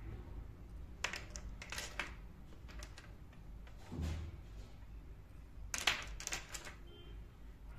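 Miniature ceramic pots and dishes clinking and tapping as they are picked up and set down on a wooden tabletop among other tiny ceramics: a few light clicks, a duller thunk about four seconds in, and a quick cluster of clinks around six seconds.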